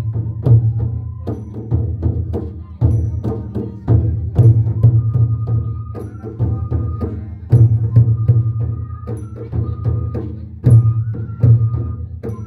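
Bodo kham, long double-headed barrel drums, played by hand in a fast rhythm. A heavy deep stroke leads each phrase about every three seconds, with quick lighter strokes in between. A thin high melody line comes and goes over the drumming.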